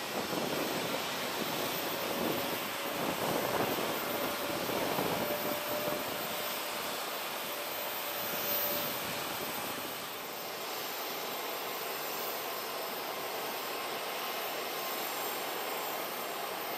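Jet airliner engines running as a plane moves on or near the runway: a continuous rush that swells in the first few seconds, with a faint steady whine running through the middle of it, then settles to a steadier, slightly quieter rush about ten seconds in.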